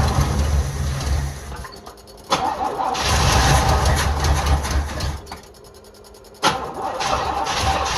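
A Box Chevy's starter cranking the cold engine in repeated tries: one crank ends about two seconds in, a second runs for about three seconds, and a third begins near the end. The engine does not catch, as it turns over without firing up.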